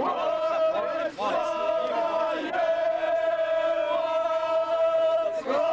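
Group of people singing a folk song together in a chanting style, holding one long note that is briefly re-taken a few times, with other voices wavering around it.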